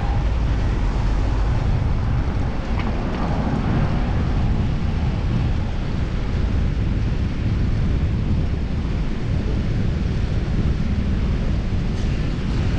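Steady wind rush on an action camera's microphone while cycling, mixed with low road noise.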